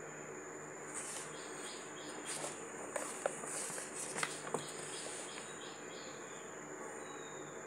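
Faint desk sounds: a few brief rustles and four light clicks, over a steady high-pitched whine and soft hiss.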